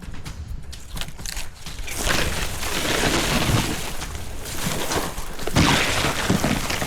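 A wounded wild hog crashing and rustling through dry brush as it runs off, growing louder about two seconds in.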